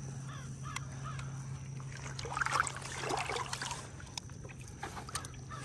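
Water sloshing and splashing around a large fish held in a floating landing net, loudest about two to three and a half seconds in, with small clicks and drips and a steady low hum underneath.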